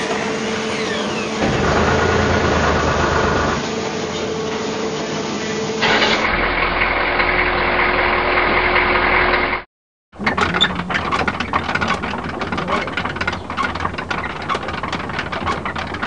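Machine engines running, in several spliced recordings that change abruptly every few seconds. The sound cuts out briefly about ten seconds in, then gives way to a noisier stretch full of sharp clicks and knocks.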